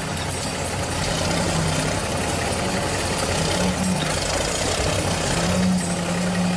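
Engine running steadily under a broad mechanical noise, with a faint wavering low tone.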